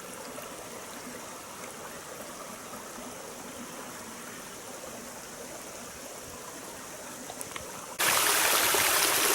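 Steady rushing of a waterfall and its stream. About eight seconds in it jumps suddenly much louder and brighter, heard from close beside the falls.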